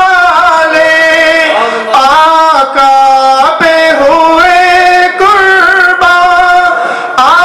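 A man singing an Urdu naat through a microphone, holding long ornamented notes that glide up and down, with brief breaks between phrases.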